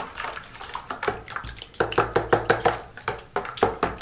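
A thin liquid mixture of milk, yeast, egg and oil being beaten by hand in a plastic bowl: the utensil taps against the bowl in quick strokes and the liquid sloshes. The strokes grow faster and louder about two seconds in.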